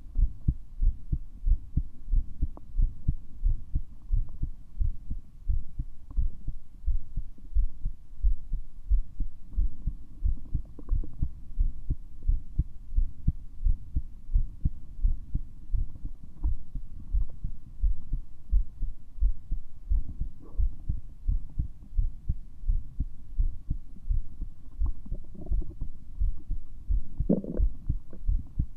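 Human heart sounds heard through a stethoscope: a steady, regular beat of dull thumps, with a brief louder noise near the end.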